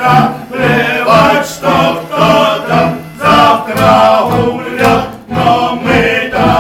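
Male choir singing a song over backing music.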